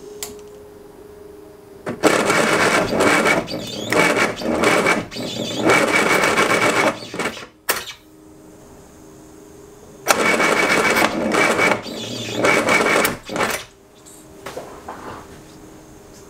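Classic Mini's rebuilt four-cylinder A-series engine with Arden 8-port head and Jenvey throttle bodies being cranked on the starter in two attempts, the first about five seconds long and the second about three and a half. These are first-start attempts, and the engine does not catch. A steady hum is heard between them.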